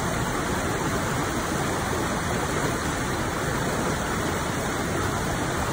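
Steady rush of a shallow, rocky river running white over rapids, with a weir spilling just upstream.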